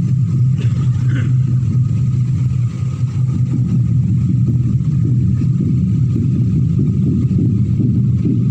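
Steady low rumble of moving air, with a faint hum underneath.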